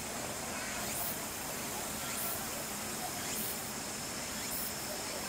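Steady hissing background noise of an outdoor enclosure, with no distinct event standing out.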